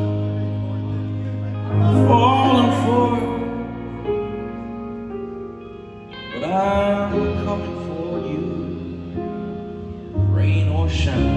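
Live rock band playing a slow, quiet passage of held chords, with a male voice singing a few long phrases over them. The music drops quieter around the middle and swells again near the end.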